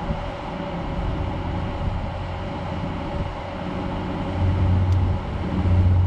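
Heavy truck diesel engine idling: a steady low hum that grows louder twice in the last second and a half.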